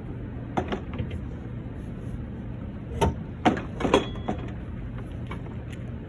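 Exhaust pipe section knocking and clanking against metal as it is worked into place under a car: a couple of knocks near the start, then three louder clanks about three to four seconds in, over a steady low hum.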